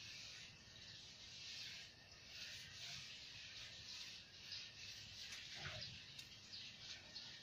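Faint scrubbing of a block-shaped scrubber rubbed back and forth over wet tiles, a rough hiss that comes and goes with each stroke, with a few small knocks.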